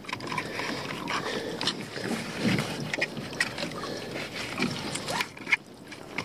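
Irregular clicks, knocks and rustling from a netted lobster pot being handled in a small boat, with a few heavier low knocks about two and a half and four and a half seconds in.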